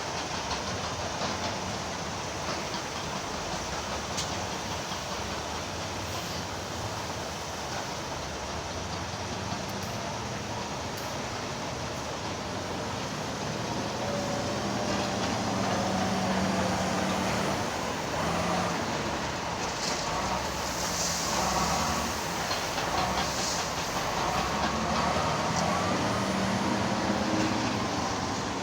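Heavy diesel earthmoving machinery running with a steady rumble, getting somewhat louder about halfway through, with wavering whine-like tones over the engine noise.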